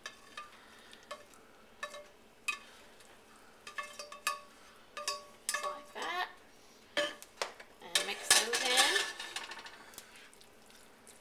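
A spoon scraping and knocking mixed vegetables out of a stainless steel pot into a skillet of thick white sauce, then stirring: a series of clinks and scrapes with short metallic ringing, busiest in the second half.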